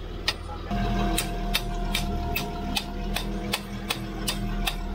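Land Rover Discovery 3 driving slowly with a steady driveline hum and a regular click about two and a half times a second, keeping time with the turning wheels or shaft. It is the sign of a fault in the drivetrain, which the owners place on one side of the car, with the prop shaft and its centre bearing under suspicion.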